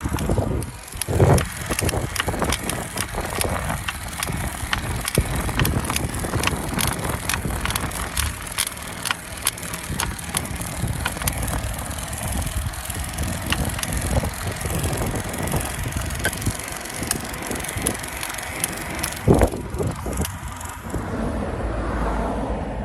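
Trek Domane+ SLR 7 e-bike's motor and crank area creaking and clicking while being ridden: sharp clicks a few per second over wind and tyre noise, with two louder knocks, about a second in and near the end. It is an abnormal noise from the drive unit that shows mainly under full turbo assistance on a climb.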